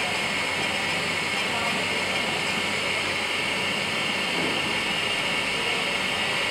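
5-axis dental CAD/CAM milling machine running: its high-speed spindle gives a steady, high-pitched hiss as the bur mills a dental arch out of a white disc.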